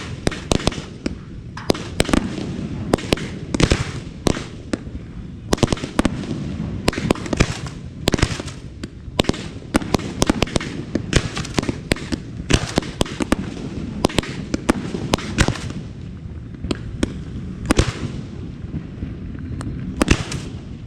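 Aerial fireworks display: a dense, continuous run of shell bursts and crackling, dozens of sharp reports at irregular spacing over a steady rumble.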